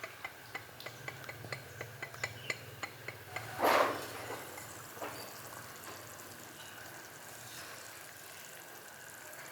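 Miniature cooking utensils at work: light, evenly spaced taps, about three a second, then a short loud rush a little before the middle, followed by a steady soft hiss.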